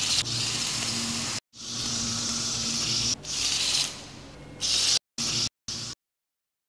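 Small DC gear motors and tracks of a toy robot tank running, a hissy whirr with a faint steady hum under it. It cuts off and starts again abruptly several times and ends in three short bursts about five to six seconds in.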